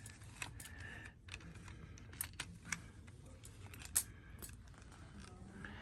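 Scattered small clicks and taps of handling a tripod fitted with a plastic quick release plate, the sharpest about four seconds in.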